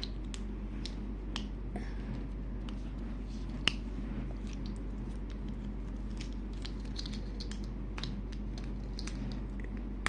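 Plastic Rubik's Cube pieces clicking and knocking as they are handled and pushed back into the cube, with one sharper click a little past three and a half seconds in.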